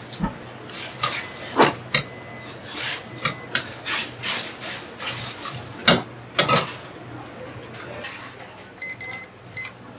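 Dishes and utensils clattering: irregular knocks and clinks with some rubbing, and a short ringing clink about nine seconds in.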